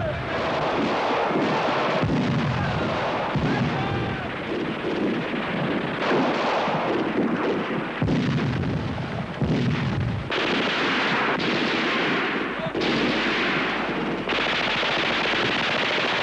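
Battle sound effects: dense gunfire, including rapid machine-gun fire, mixed with artillery blasts and a few short whistling glides in the first few seconds. The texture changes abruptly several times in the second half.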